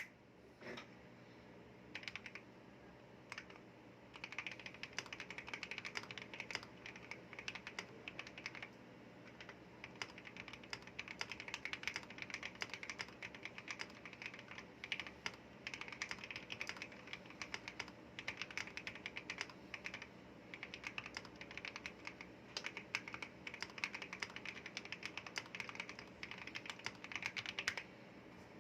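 Typing on a Womier K87 mechanical keyboard with Gateron Yellow linear switches and honey milk keycaps. A few single keystrokes come first, then rapid continuous typing from about four seconds in, broken by a couple of short pauses.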